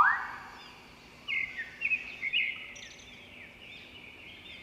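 Birds calling outdoors. A rising whistled note at the very start is followed, from about a second in, by a series of short high chirps and trills over faint background hiss.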